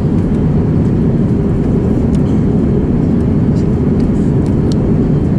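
Steady, loud drone of an airliner cabin in flight: engine and air noise, deepest in the low range, with a few faint clicks.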